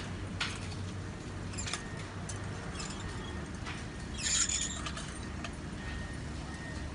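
Scattered metallic clicks and clinks of steel rebar being worked while a reinforcement cage is tied, over a steady low hum, with a short rattling burst about four seconds in.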